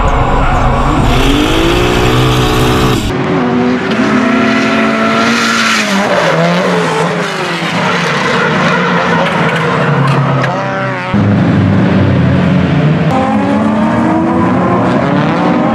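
Drift car engines revving hard, their pitch climbing and falling as the throttle is worked, mixed with tyre squeal. The sound changes abruptly about three seconds in and again about eleven seconds in, as it jumps to a different car.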